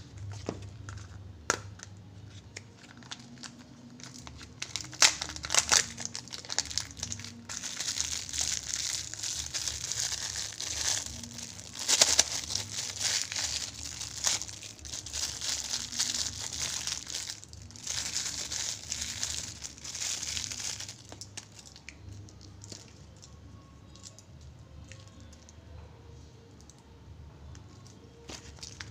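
Thin plastic wrapper crinkling and tearing under the fingers as a surprise egg's toy is unwrapped, with a few sharp clicks and snaps in the first six seconds. The crinkling is loudest and densest through the middle, then turns softer and sparser for the last several seconds.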